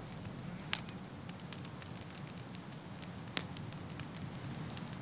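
Wood log fire crackling, with many small sharp pops and two louder pops, one just under a second in and one past three seconds, over a steady faint hiss.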